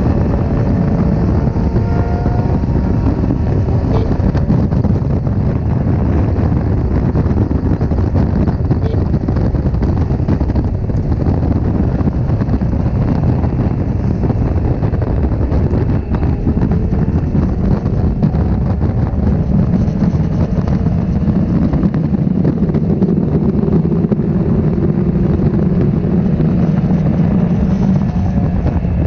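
Honda CB1300's inline-four engine running steadily at highway speed, heard from a camera mounted on the bike, with wind buffeting the microphone.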